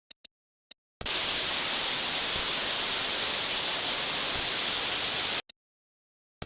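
A steady, even hiss of static-like noise lasting about four seconds, switching on and off abruptly, with a few short clicks before it and one near the end.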